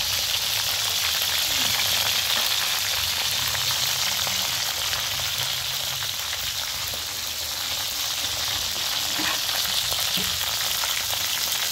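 Whole frogs frying in hot oil in a steel wok: a steady sizzle with fine crackling from the spitting oil, and a metal ladle stirring and turning them in the pan.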